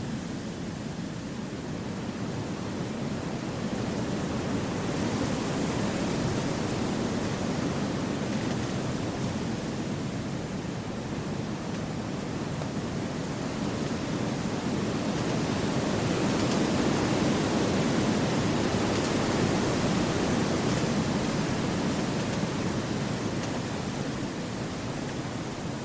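Wind rushing steadily through forest trees, an even hiss that swells twice and eases back.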